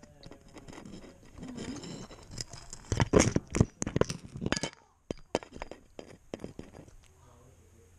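A cat eating dry kibble from a stainless steel bowl: crunching and sharp clinks of the collar camera knocking against the metal bowl. These are densest a few seconds in and thin out to a few scattered clicks near the end.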